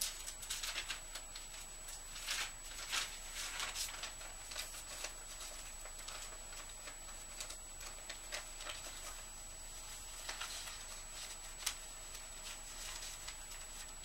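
Sheets of paper letters and cards rustling and crinkling as they are picked up and sorted, in irregular bursts that are busiest in the first few seconds, with one sharp snap of paper near the end. A faint steady high whine sits underneath.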